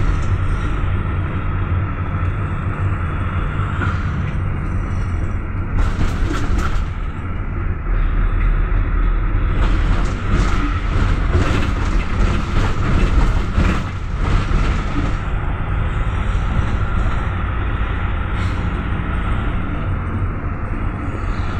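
Inside a moving GAZ-A64R42 Gazelle Next minibus: steady low engine and road rumble with a constant high hum, and spells of rattling and clatter, about six seconds in and again from about ten to fourteen seconds.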